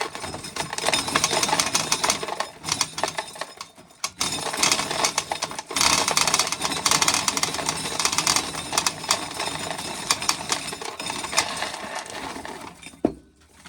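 Dried corn kernels being shelled off an ear, a dense run of rapid clicking and rattling as the kernels break loose and drop, with short pauses about four and six seconds in. It stops with a single sharp knock a little before the end.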